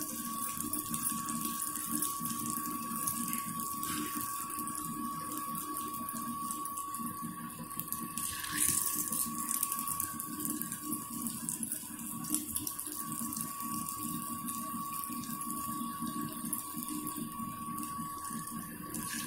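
Aloo bondas in dosa batter sizzling steadily as they deep-fry in hot oil, with a steady thin hum alongside and a brief louder swell of sizzle about halfway through.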